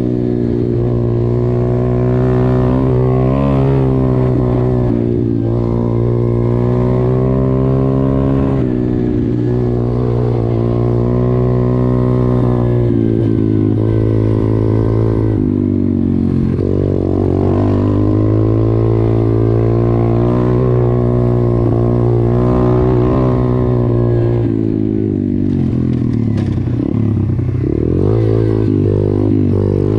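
YCF 125 pit bike's single-cylinder four-stroke engine running as it is ridden over dirt trails. The engine note mostly holds steady, with the pitch rising and falling with the throttle in places, most markedly near the end.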